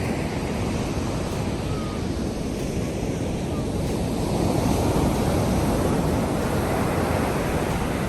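Rough sea surf: waves breaking and rushing in, a continuous loud wash that swells to its loudest about halfway through.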